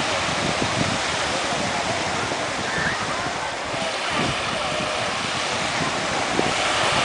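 Small sea waves lapping and breaking at the shoreline, a steady wash, with wind buffeting the microphone in uneven low rumbles.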